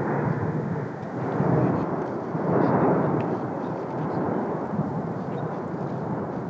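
Cumbre Vieja volcano erupting: a continuous low rumble that swells and eases in waves, loudest about two to three seconds in.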